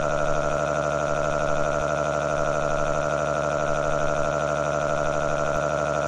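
A synthetic text-to-speech voice holding one long, steady-pitched 'aaaaaa' wail: a cartoon character's crying.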